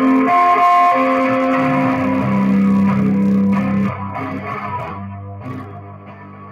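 Electric guitar played live, a few long held notes changing pitch; about four seconds in it drops to lower, quieter notes.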